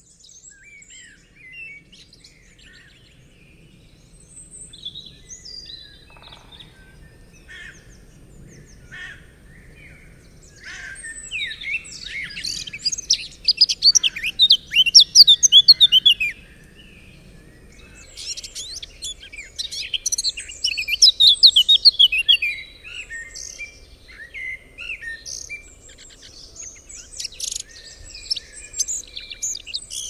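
Forest ambience of many birds chirping and calling over one another. It swells into two loud spells of dense, rapid chirping, about a third and two-thirds of the way through, over a faint low background noise.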